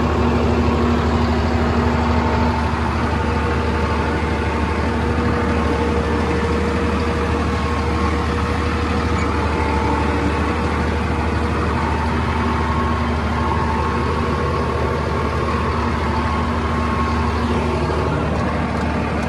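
Swaraj tractor's diesel engine running steadily, heard from the driver's seat as the tractor is driven along a field.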